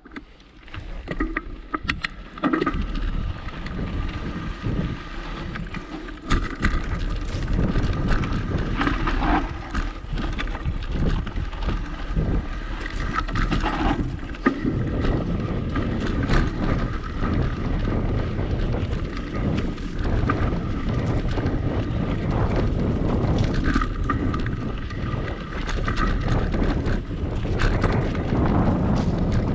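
Mountain bike ridden down a dirt singletrack, heard through a bike-mounted action camera: wind buffeting the microphone over tyre noise on dirt, with frequent knocks and rattles from the bike over bumps and roots. It starts quietly and builds within the first two seconds as the bike picks up speed.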